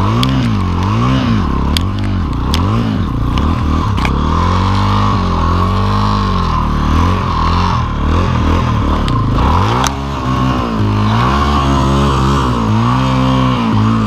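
Dirt bike engine revving up and down over and over as it works through snow up to its exhaust pipe, the pitch rising and falling about once a second. It holds steadier for the last few seconds.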